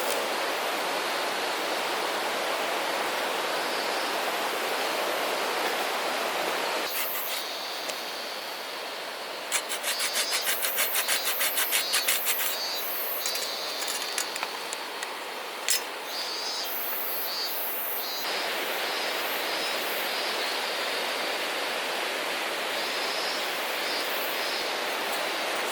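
Steady outdoor hiss, even and without any tone. Partway through, a quick run of rapid clicks lasts about three seconds, and one more click follows a few seconds later.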